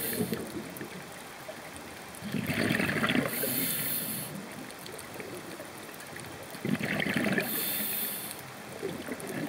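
Scuba breathing through a regulator, heard underwater: a burst of bubbling exhaust on each exhale, then a hissing inhale, twice, about four to five seconds apart.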